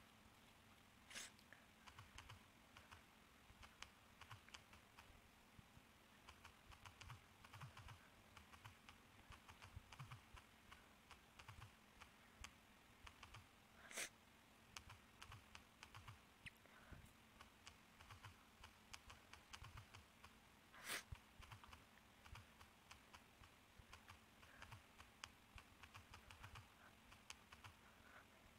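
Faint, quick, irregular clicks of typing, with a few sharper single clicks now and then.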